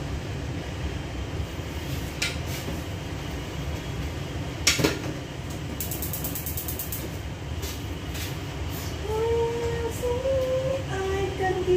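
A steady low hum under kitchen noises: a single loud clank of cookware a little before halfway, then a rapid run of clicks from the gas stove's igniter as the burner under the wok is lit. Near the end a woman hums a few held notes.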